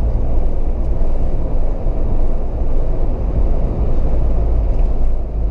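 Steady road, wind and engine noise inside the cabin of a Mahindra Thar hard top driving at close to 100 km/h, a deep even rumble. No whistle is heard: the nuts by the rear-view mirror mount, which the owner was told were the cause, have been tightened and the whistle is gone.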